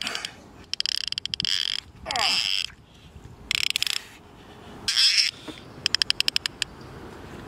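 Baitcasting reel's drag buzzing in five short rasping bursts, one of them a fast run of clicks, as a hooked wels catfish of about two metres pulls line off the spool.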